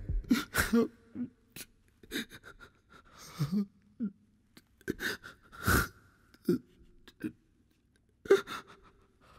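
An elderly man gasping and sobbing in short, broken breaths, crying out in grief at news of a death.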